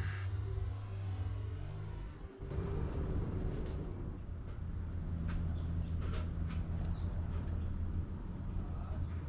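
Outdoor ambience: a steady low background rumble with a few short, high bird chirps, the clearest about five and a half and seven seconds in. The background changes abruptly a little over two seconds in.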